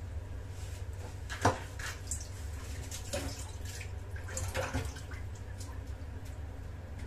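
A few light kitchen taps and drip-like clicks, the sharpest about a second and a half in and a small cluster near the end, over a steady low hum.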